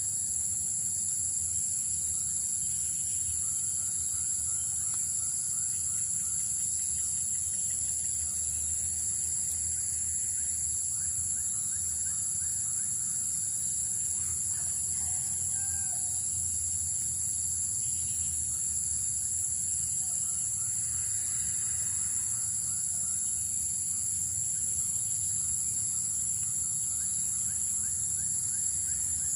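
Steady chorus of insects, likely crickets or cicadas, a continuous high-pitched shrill that holds at an even level throughout.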